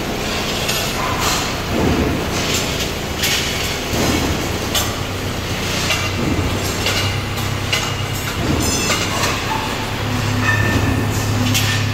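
Forklift running while moving a pallet load, with repeated metal clanks and knocks over a steady low hum that grows stronger about ten seconds in.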